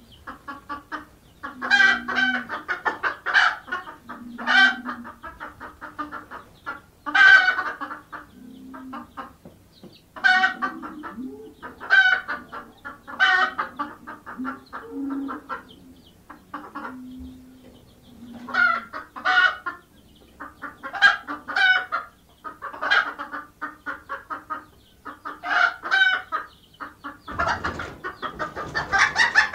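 A flock of hens and chicks: hens clucking in repeated bouts of calls with low clucks between them, growing busier and denser near the end.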